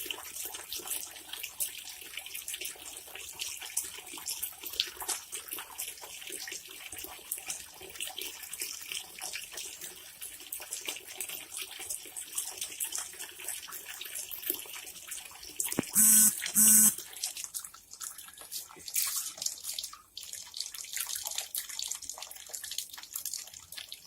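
Water running from a tap and splashing, with irregular small clicks and splashes. About sixteen seconds in, two short loud barks from a Labrador dog, angry at the running water.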